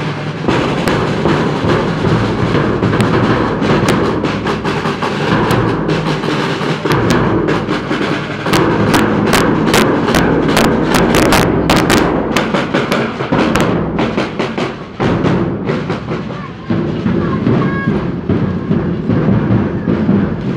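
Street drum band of bass drum and side drums played with sticks, beating a loud, driving rhythm. Through the middle comes a run of sharp, cracking strokes at about four a second, and the drumming thins out near the end.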